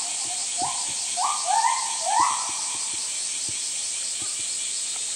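Steady high buzzing of summer insects, most likely cicadas. Several short rising calls come over it in the first half, the loudest about two seconds in.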